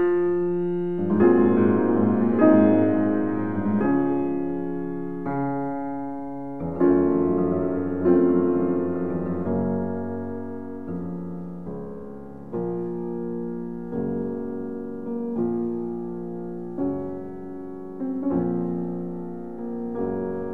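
Slow solo piano background music: a chord struck about every second and a half, each dying away before the next, playing softer in the second half.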